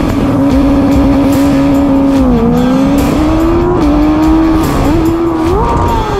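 Superbike racing engine at high revs, heard onboard, its pitch mostly held steady and dipping and rising a few times, over the steady rush of wind noise.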